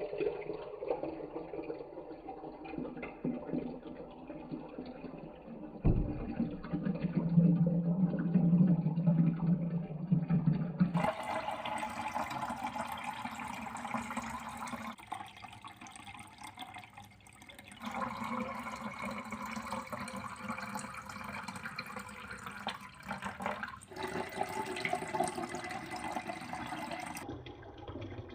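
Many glass marbles rolling and clattering down marble-run tracks in a continuous rushing rattle, louder for a few seconds about six seconds in.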